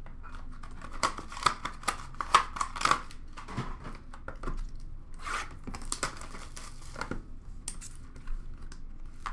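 Crinkling plastic wrap and rustling cardboard as a 2020-21 Upper Deck Clear Cut hockey card box is handled and opened. The wrapping tears in quick bursts of crackling, densest in the first few seconds, with another burst a little past halfway.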